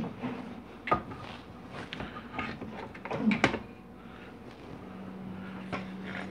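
A few sharp clicks and knocks of tools and metal parts being handled on a workbench, the loudest pair just after three seconds in, over a low steady hum.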